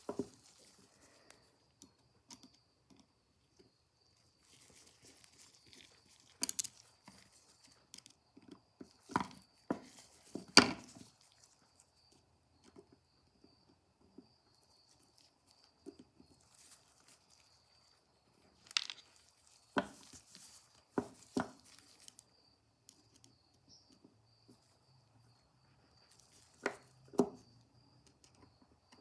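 Small metal parts of a Victrola phonograph governor (screws, washers and springs) clicking and tapping as they are worked loose and handled. The sharp clicks come singly or in pairs, with long quiet gaps between them.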